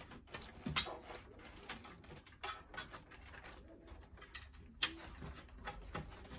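Light clicks and rustles of a USB cable and its plastic connector being handled and pushed through a gap in a PC case.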